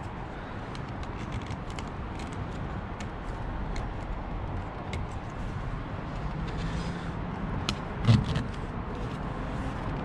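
Rubber weather stripping being pressed and worked by hand into a car door's channel: faint scattered clicks and rubbing over a steady background noise, with one dull thump about eight seconds in.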